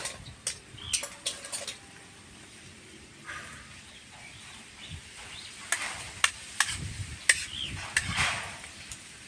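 Shellfish shells clicking and clacking as they are handled by hand, knocking against each other and a steel bowl. There are two clusters of sharp clicks, about a second in and again from about six to eight seconds in.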